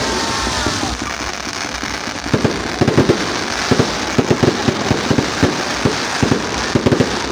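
Fireworks going off: a continuous crackling hiss with many irregular sharp bangs, coming thicker from about two seconds in.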